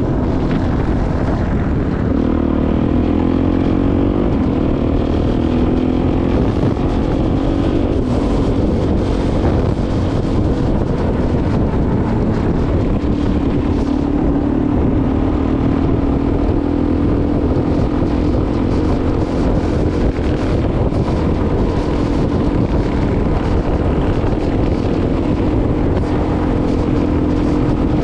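Dirt bike's engine running under way on a gravel track, rising in pitch a few times in the first seconds as it picks up speed, then holding a steady note.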